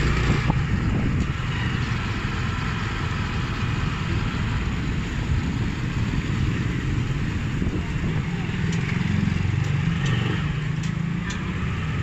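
A motor vehicle's engine running steadily while driving, with road and wind noise.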